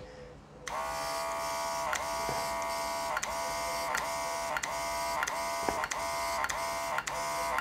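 A portable mini airbrush compressor starts under a second in and runs with a high-pitched whine, with the hiss of air through the airbrush. The whine dips briefly about twice a second.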